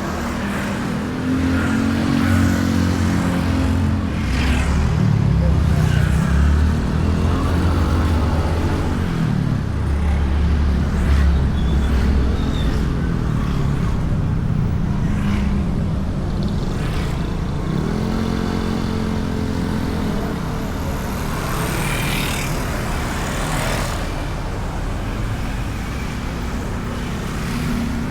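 Honda Beat scooter's small single-cylinder engine running under way, its pitch rising and falling as the throttle is opened and eased, heard from a bike-mounted camera with road noise and traffic passing now and then.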